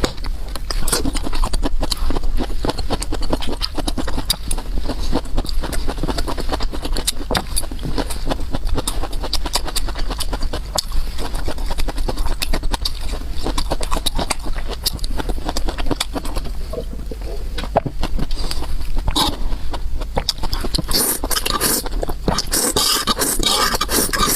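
Close-miked eating: rapid, constant chewing and mouth clicks as food is eaten fast, over a steady low hum.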